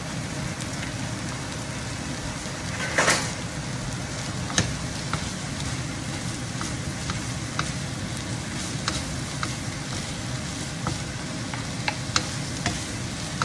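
Shredded cabbage sizzling in a hot nonstick frying pan as it is stir-fried, with frequent short taps and scrapes of the spatulas against the pan. A louder brief noise comes about three seconds in.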